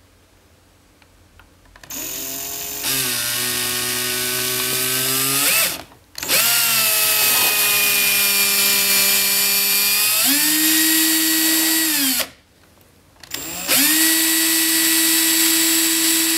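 Cordless drill's electric motor running, starting about two seconds in, as a steady whine that stops and restarts twice, its pitch shifting between runs. The motor is burning out, with smoke coming from its vents.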